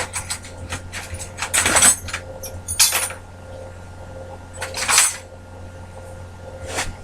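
Metal parts being handled, clanking and rattling, with a run of sharp knocks about two, three and five seconds in, over a low steady hum.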